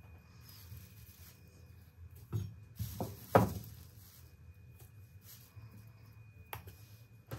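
Marrow bones being taken out of a rustling plastic bag and set into a stainless steel stockpot of raw beef and cut vegetables: light handling noise with a few soft knocks, the loudest about three and a half seconds in.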